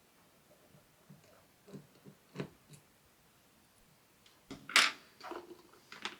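Faint clicks and light taps of small tools and screws being handled on a laptop, with one louder, brief clatter a little under five seconds in.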